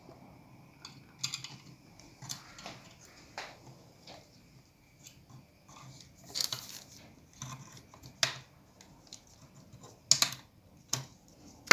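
Irregular small clicks and taps of hard plastic as a Passat B5 centre dashboard air-vent grille housing is pried apart with a small screwdriver and its plastic parts handled.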